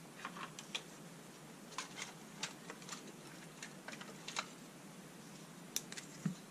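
Scattered light clicks and taps from hands handling long, thin LED light strips on a workbench mat, then two sharper clicks near the end as the cap of a felt-tip marker pen is pulled off.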